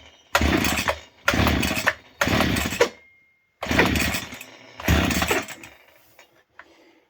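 Stihl FS40 strimmer's two-stroke engine being pull-started five times in quick succession, each pull a short burst of cranking and firing. It is running only on a drop of two-stroke mix put straight in, and does not keep going, which points to a fault in the carburettor.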